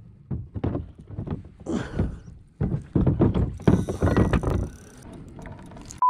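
White braided boat rope being pulled in and gathered into coils by hand, with an irregular run of knocks and scrapes against the boat, busiest about halfway through.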